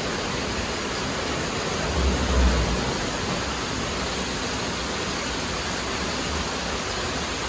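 Steady, loud rushing hiss spread evenly from low to high pitch, with a brief low rumble about two seconds in.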